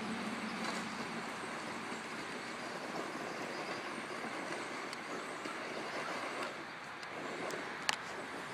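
ECX Circuit electric RC truck driving over dirt and gravel: a steady rushing noise of tyres and drivetrain, with one sharp click near the end.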